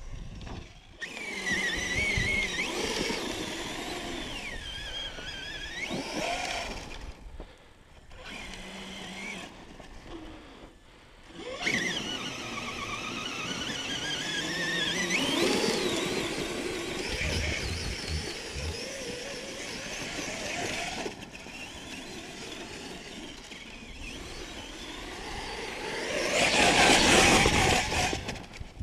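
Whine of brushless electric RC motors that keeps bending up and down in pitch, dropping away briefly twice. Near the end a louder rushing noise swells for a couple of seconds.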